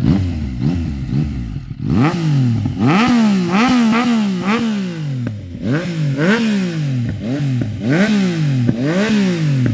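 Yamaha MT-09's 847 cc inline-three engine breathing through an Akrapovic full carbon racing full-system exhaust. It is revved in more than a dozen quick throttle blips, each a sharp rise in revs that falls away before the next.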